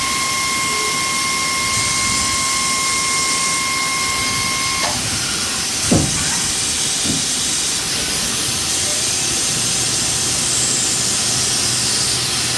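CNC live-tooled turning center machining a PEEK part: a steady hiss with a high whine that stops about five seconds in, then a single knock about a second later.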